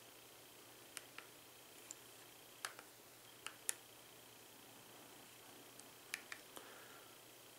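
Remote control buttons clicking as the Xiaomi Mi Box S settings menu is navigated: about ten sharp presses in small quick groups, over near silence with a faint steady high tone.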